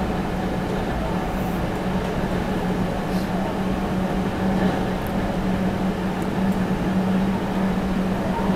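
Meitetsu 3700 series electric train running at about 70 km/h, heard inside the passenger car: a steady running rumble with a steady low hum, while the train gently picks up speed.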